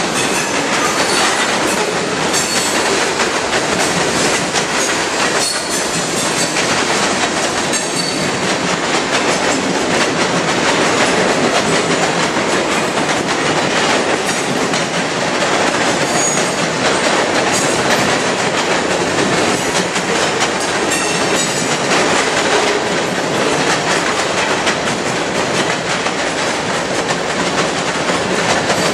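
Freight train's tank cars and covered hoppers rolling steadily past: steel wheels on rail making a continuous rumble with rapid clicking over the rail joints, and a few brief faint high wheel squeals now and then.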